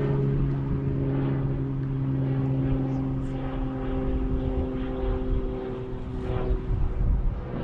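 Boat's outboard motor running at a steady pitch; the engine note drops slightly near the end.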